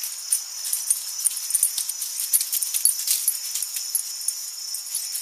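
A dog nosing and chewing in the grass, with light, quick metallic jingling and ticking over a steady high chirring of insects.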